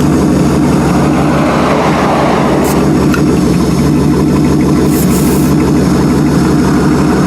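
Jeep engine idling with a steady, even drone.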